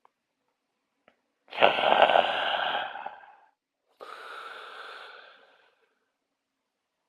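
A person snoring: a loud snore with a low rattle about a second and a half in, then a quieter breath, and the next loud snore begins at the very end.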